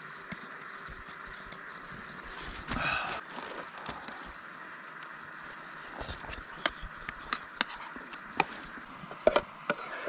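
Small gear being handled: a rustle about two and a half seconds in, then a run of sharp clicks and knocks over the last four seconds, over a steady faint hiss.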